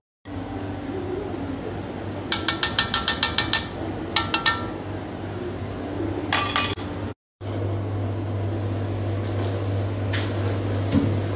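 A metal spoon tapping quickly against the rim of a spice pot, about ten ringing clinks in a row, then a few more and one last clink, as turmeric powder is knocked off the spoon. A steady low hum runs underneath.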